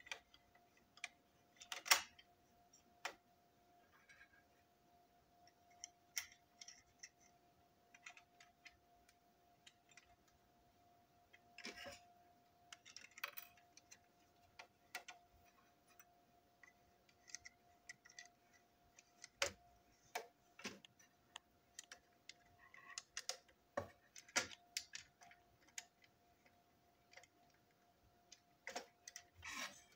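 Scattered small clicks and taps of plastic toy train parts being handled and pressed together: the wheeled chassis and body of a toy brake van. A faint steady hum runs beneath.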